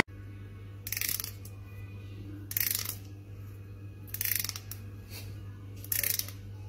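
A finger strummed along the teeth of a plastic comb, four short rasping strokes about a second and a half apart, over a steady low hum.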